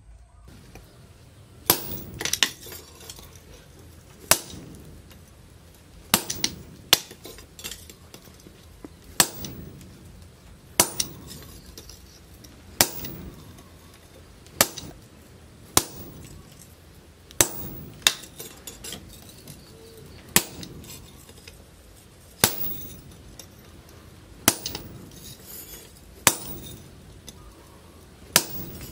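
Sledgehammer striking a handled hot-cut chisel held on a heated steel sprocket over an anvil, cutting into the metal. A sharp ringing clang about every second or two, sometimes two strikes close together.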